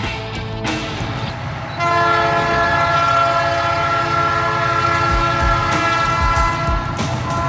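Diesel freight locomotive's air horn sounding a long chord that starts about two seconds in and holds, over the train's rumble and wheel clicks on the rails.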